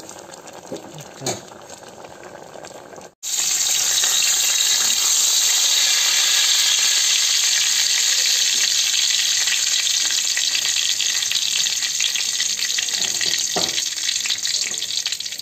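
A metal ladle stirs a pot of dal and drumstick leaves, with a few scraping clicks against the aluminium pot. After about three seconds it cuts to oil sizzling loudly and steadily in a karahi with a few pieces frying in it, and a single knock of the spatula near the end.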